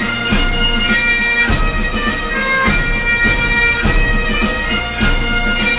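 Bagpipe music: a melody of held notes over a steady drone, with a drum beat underneath.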